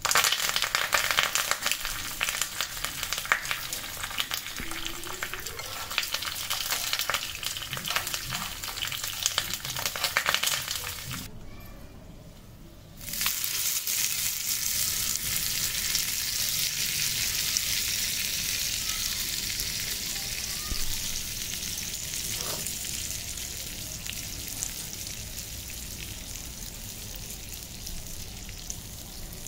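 Curry leaves and dry red chillies frying in hot oil in a small tempering pan, with many sharp crackles and pops. After a brief break about 11 seconds in, a steady sizzle starts as the hot tempering hits the coconut-mango chutney, slowly fading.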